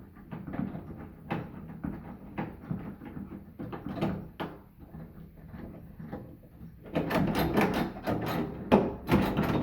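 Door knob and mortise lock hardware being worked by hand: the knob turned and jiggled on its spindle, with irregular metal clicks, knocks and rattles, louder from about seven seconds in.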